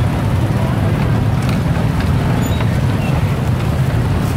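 Steady low rumble of busy street traffic, with a few faint short high chirps over it.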